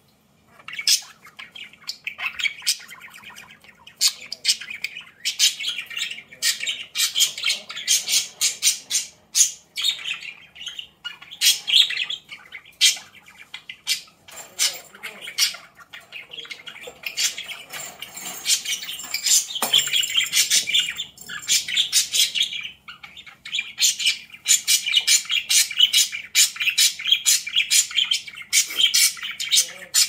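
Budgies chattering and warbling in a fast, continuous stream of short high chirps and squawks, with a brief lull just after the start and another about three-quarters of the way through.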